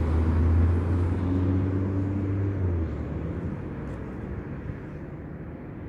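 Motor vehicle engine running close by with a steady low hum, which drops away after about three seconds, leaving a fading traffic rumble.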